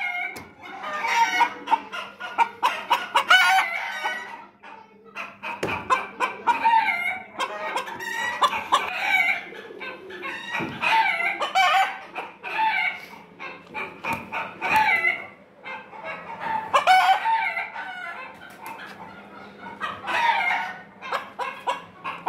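Chickens clucking and crowing, one call after another with short gaps between them.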